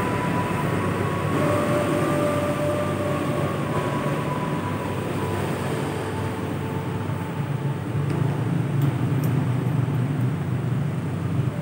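Steady low rumbling hum of background noise, with a faint steady whine over it.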